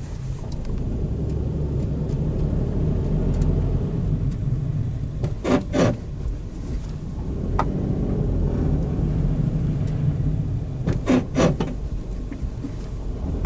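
Renault Clio's front suspension making short sharp noises in pairs, twice, over the steady low rumble of the car rolling slowly, heard from inside the cabin: the strange front-suspension noise that is the car's fault.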